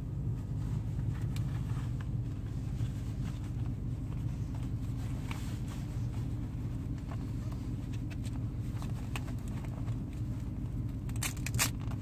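Car engine idling with a steady low hum, under light scraping and handling noises as a leather Velcro seatbelt adjuster is fitted onto the seatbelt webbing. A few sharper crackles come near the end.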